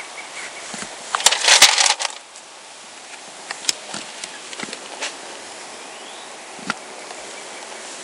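Rustling and clicking handling noise on a body-worn camera, with clothing brushing over the microphone. There is a loud burst of clatter and rustle about a second and a half in, then scattered single clicks over a steady outdoor hiss.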